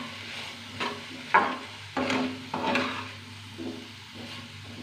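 Metal spoon scraping and stirring diced potatoes with ground spices in a steel kadhai, with a light sizzle. The strokes come in the first three seconds, the loudest about a second and a half in, then the stirring goes quieter.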